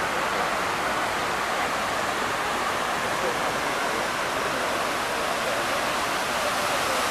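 Steady rush of water falling down the walls of the 9/11 Memorial's reflecting pool into the basin.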